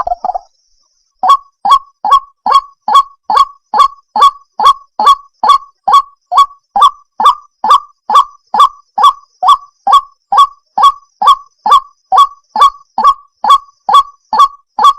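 White-breasted waterhen (ruak-ruak) calling: a steady run of short, harsh, falling notes, about two and a half a second, starting about a second in after a brief gap.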